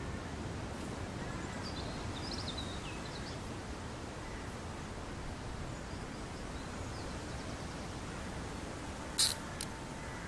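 Steady outdoor ambience by a river, a low even rush of air and water, with a few faint bird chirps about two seconds in. Two short sharp clicks come near the end, the first the loudest sound here.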